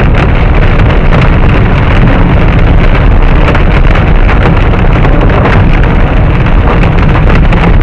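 Hail and rain pelting a car's roof and windows, heard from inside the car: a loud, dense, steady clatter of countless small impacts.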